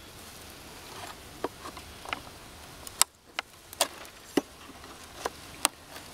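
A honey bee package being handled: a string of sharp knocks and taps, about ten, the loudest about halfway through, over the steady hum of the bees.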